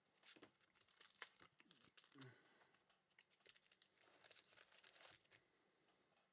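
Faint crinkling and rustling with quick light clicks: trading cards and their plastic holders being handled at the table.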